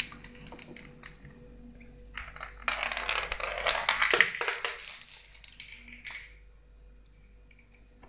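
A walnut clicking and rattling on ceramic floor tiles as a kitten bats it about, light taps scattered throughout. About three seconds in comes a louder scuffling rustle lasting about three seconds before it settles.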